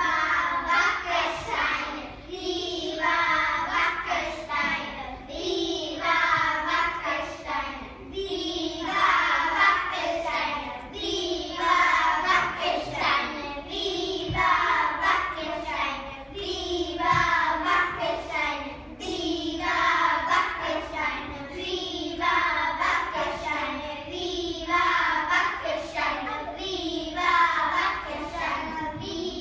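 A group of young children singing a song together, in short repeating phrases.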